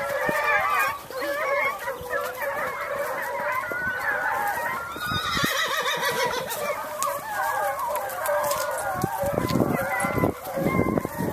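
A pack of foxhounds in full cry, many voices baying at once in a continuous overlapping chorus, the sound of hounds running on a scent.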